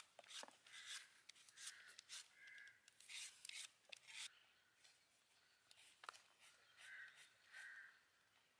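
Faint crow caws, two calls at a time, over soft clicking and rubbing of hands snapping the stems off small red chili peppers.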